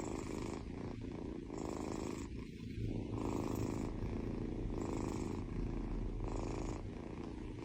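Domestic cat purring steadily, its purr swelling and easing in about five breath cycles, one every one and a half seconds.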